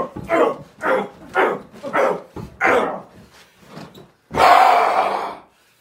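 A run of short, loud cries, about two a second, fading after about three seconds, then one longer, louder cry about four seconds in.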